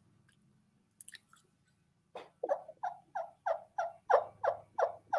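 Turkey mouth call (diaphragm) yelping softly: a run of about a dozen evenly spaced yelp notes, each breaking down in pitch, about three a second, starting about two seconds in. This is a real soft, light throaty hen yelp, a content call meant to calm a cautious gobbler.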